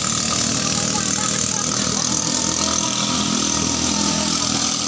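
Small 6.5 hp ketinting longtail boat engines running at a steady speed, an even engine drone with no change in pitch.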